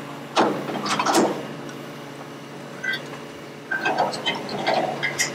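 Knocks and scrapes of a wooden block and steel rod being handled on a steel trailer frame, a cluster about half a second to a second in and more from about four seconds in, over a steady low hum.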